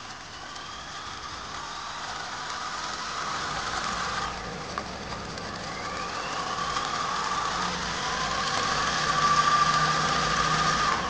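Tongsheng TSDZ8 mid-drive e-bike motor running with no load, driving the chainring, chain and rear wheel: a steady mechanical whine whose higher tone rises in pitch twice as it speeds up, growing louder throughout.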